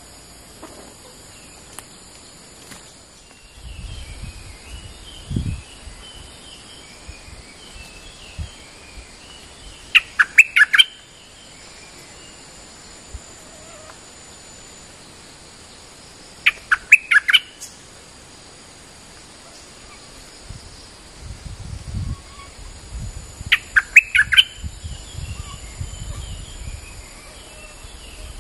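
Stripe-throated bulbul, a caged decoy bird, calling in three short loud bursts of four or five quick notes, roughly six to seven seconds apart. Softer chirps come between the bursts, and a steady high insect hum runs behind.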